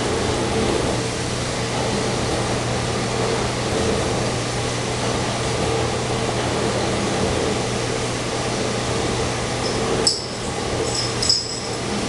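Steady hum and rush of running reef-aquarium equipment (pumps and circulating water), with a low hum throughout. Near the end come a couple of brief clicks and short high whirs.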